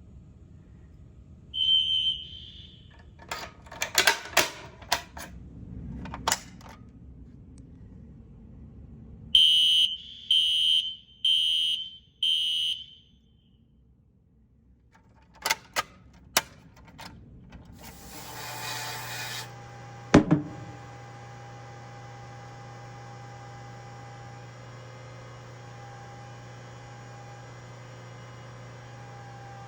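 Fire alarm equipment under test: one short shrill electronic beep, then a run of four short shrill beeps, with handling clicks and knocks between. A thump follows, and then a steady electrical hum.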